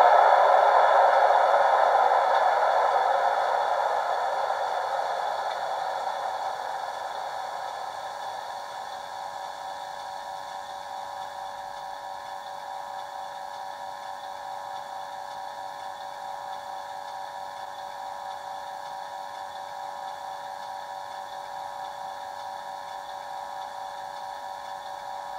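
Class 91 electric locomotive sounds from a model's DCC sound decoder: a rushing noise dies away over about eight seconds, leaving a steady electrical hum of several tones as the locomotive stands idle.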